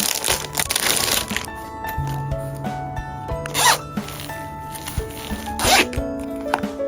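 Background music with packaging being handled: a stretch of crinkling rustle at the start, then two short sharp crinkles or tears about two seconds apart.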